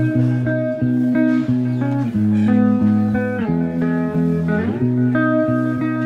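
Background music: an instrumental guitar tune with plucked notes over a moving bass line.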